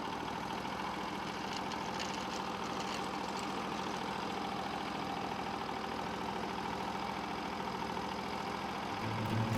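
Norwood LumberMate Pro MX34 portable band sawmill with its engine running steadily, an even mechanical drone that does not change.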